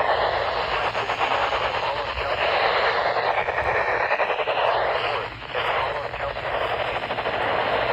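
Weather radio receiver hissing with static on a channel with no broadcast. The hiss dips briefly about five seconds in.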